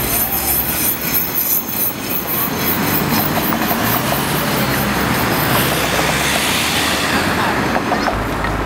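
City tram running on street rails, mixed with steady street traffic noise from passing cars.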